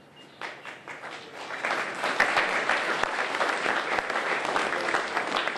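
Audience applauding, starting with a few scattered claps and swelling to full applause about two seconds in.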